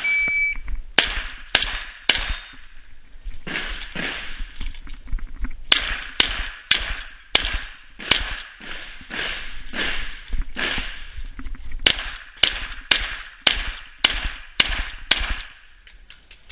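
A shot timer's short high start beep, then a long, rapid string of 12-gauge shotgun shots, mostly a third to half a second apart, with a short pause about three seconds in while the shooter moves or reloads.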